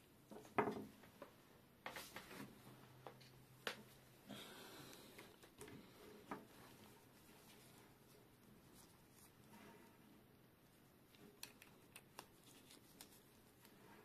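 Quiet handling noises: gloved hands moving a USB cable and its plastic plugs, with scattered light clicks and taps, the sharpest about half a second in, and a brief soft rustle around four seconds in.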